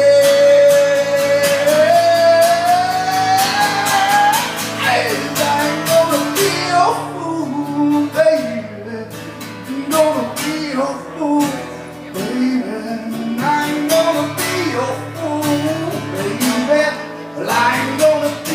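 Live solo song: a singer's voice with strummed guitar. It opens on a long held note that slides upward, then moves into bending vocal lines over steadily strummed chords.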